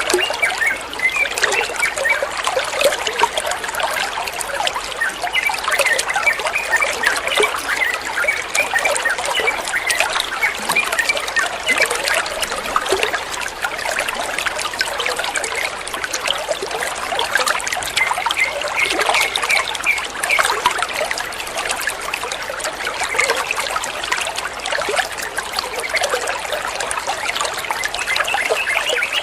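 Flowing water trickling and splashing steadily, with a dense patter of small bright drips and bubbles.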